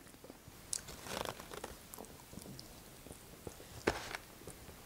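Fork scraping and tapping against a foam takeout container, with quiet chewing between. There is a noisier scrape about a second in and one sharper click near the end.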